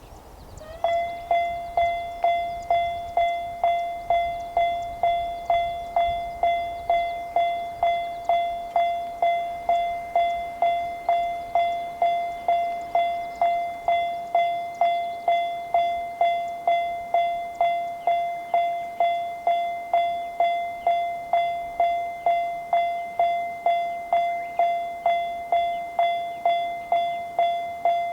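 Japanese level crossing's electronic warning bell starting up about a second in, then ringing a steady 'kan-kan' of one clear high tone repeated a little under twice a second. It is the alarm that warns of an approaching train.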